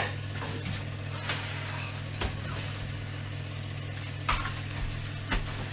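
Electric hair clippers running with a steady low buzz, with a few faint knocks.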